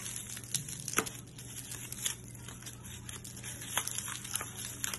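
Bubble wrap crinkling as hands peel it off an egg-shaped object, with a few sharp crackles spread through.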